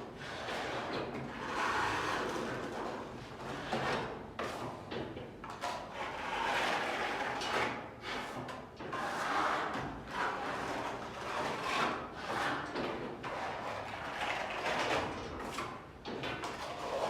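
Repeated rough scraping strokes of a painting or plastering tool worked across a wall, coming in irregular swells every second or two with a few light knocks.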